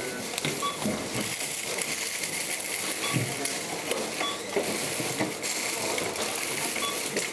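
Supermarket checkout ambience: several short electronic beeps from the checkout scanner, with irregular clicks, knocks and the rattle of goods and coins being handled.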